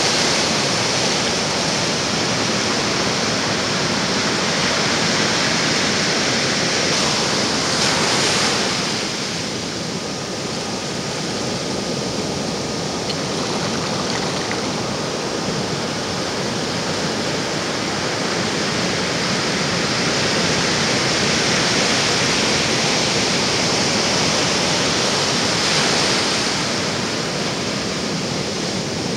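Ocean surf breaking and washing in a steady rush, swelling louder about eight seconds in and again near the end.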